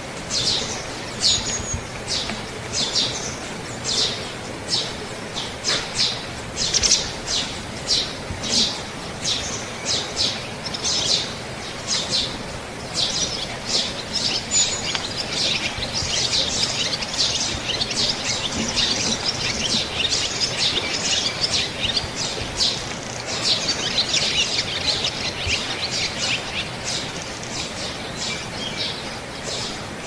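Small songbirds calling: short, high chirps about two a second, turning into a dense, continuous twittering about halfway through.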